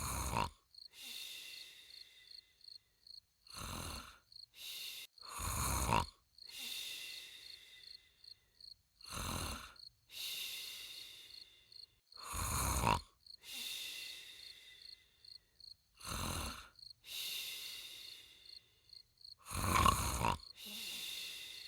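A person snoring loudly and regularly, about every three to four seconds. Each loud snore on the in-breath is followed by a longer, softer hissing breath out with a faint whistle.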